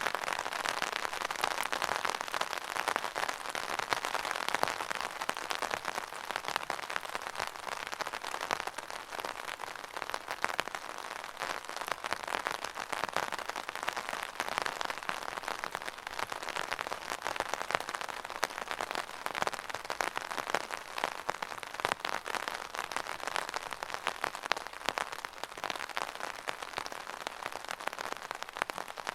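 Steady rain falling, a dense patter of drops over an even hiss.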